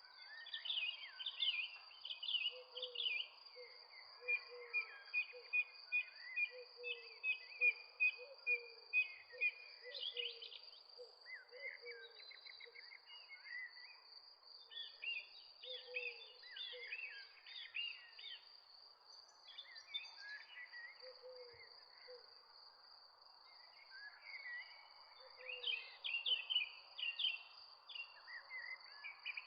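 Birds chirping and trilling, with short low calls repeating about once a second, over a steady high-pitched insect drone.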